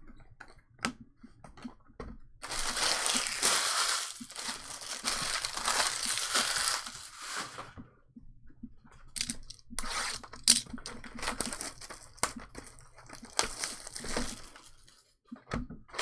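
A foil trading card pack being torn open and crinkled for about five seconds. Later comes a run of sharp clicks and crinkles as the cards are handled.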